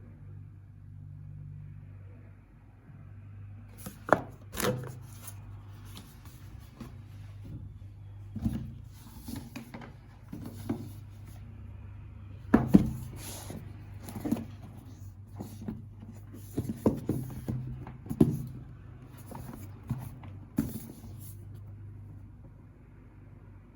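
Keyboard packaging being handled and opened by hand: irregular knocks, clicks and rubbing of the box and its contents, over a steady low hum.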